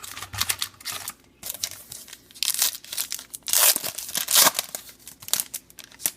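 Foil wrapper of a trading card pack being torn open and crinkled by hand, in irregular rustling bursts, loudest around the middle.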